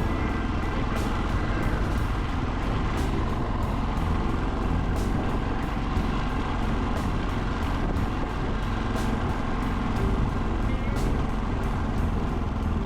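Yamaha XT660Z Ténéré's single-cylinder engine running steadily while riding, under background music with a steady beat.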